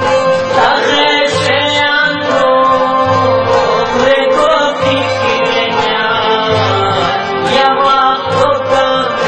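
A man singing a Chitrali folk song over instrumental accompaniment, with steady held tones beneath his voice and a low beat that comes about once a second.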